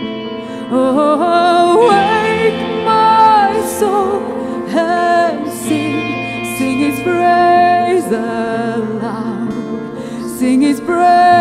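Live worship band music: a woman sings the lead melody into a microphone over a band with electric guitar, the voice coming in strongly about a second in.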